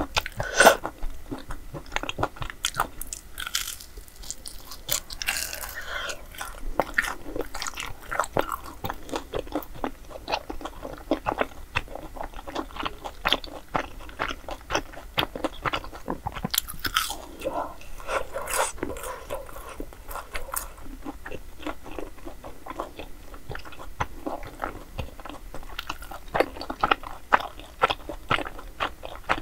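A person eating a crisp pan-fried Korean dessert: repeated crunchy bites and chewing, with many small crunches and mouth clicks.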